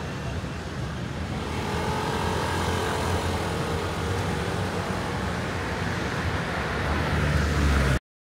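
Motor-vehicle traffic with a steady low engine rumble that grows louder toward the end as a vehicle comes close. The sound cuts off abruptly to silence just before the end.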